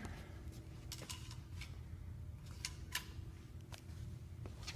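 Steady low hum with a faint steady tone, under a scattering of faint, short clicks and taps from a crossbow and shooting gear being handled. No shot is fired.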